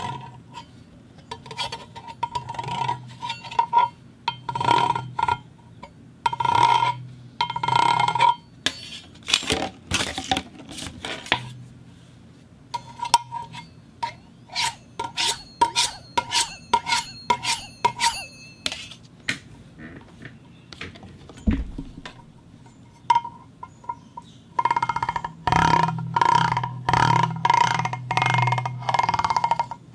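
Corrugated pipe scraped and rubbed against a metal plate in a series of uneven strokes, many of them carrying a steady ringing tone. Faster runs of sharp clicks come around the middle and again near the end.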